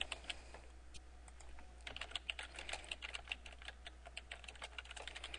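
Faint computer keyboard typing: quick, irregular keystroke clicks, a few scattered ones at first, then a steady run of typing from about two seconds in.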